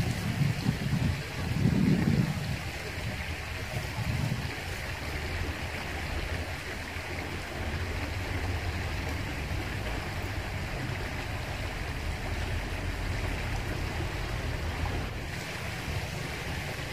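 Steady rush of flowing river water, with a few gusts of wind buffeting the microphone in the first few seconds.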